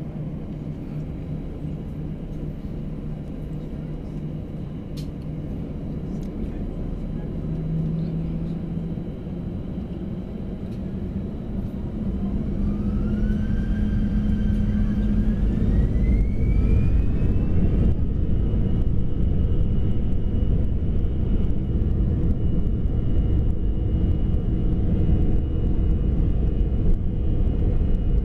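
Airbus A321-211's CFM56 jet engines spooling up to takeoff thrust, heard inside the cabin: a low rumble, then about halfway through a rising whine that levels off into a steady high whine as the engines reach power and the takeoff roll begins.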